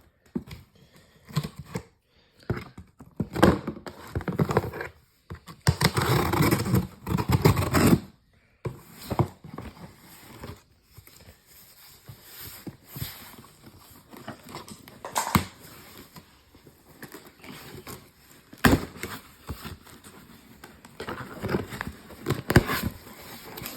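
A package being opened and handled by hand: tearing and scraping of packaging, with irregular clicks and a few sharp knocks.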